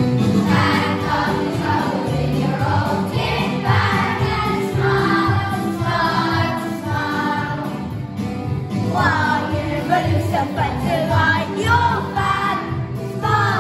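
A song sung by a group of voices over instrumental accompaniment.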